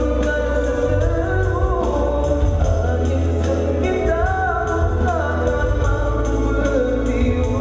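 Music with voices singing a melody over a steady low bass and a light regular beat.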